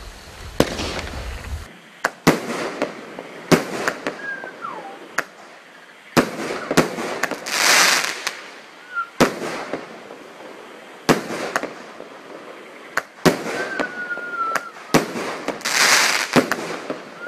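A 16-shot firework cake with 25 mm tubes firing: a string of sharp, unevenly spaced reports from the shots and their bursts. Twice there is a longer hissing crackle, each about a second long.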